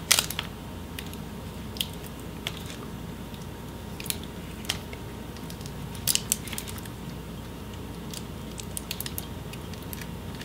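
Adhesive tape being picked at and peeled by fingers off an LCD panel's video cable connector: scattered small crackles and clicks, a few sharper ones.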